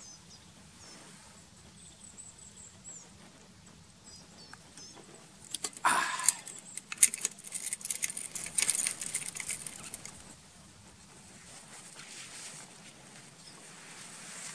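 Aluminium drinking bottle being handled: a louder knock about six seconds in, then a few seconds of quick metallic clicks and scraping as the screw cap is turned on. Near the end comes faint rustling of footsteps through undergrowth.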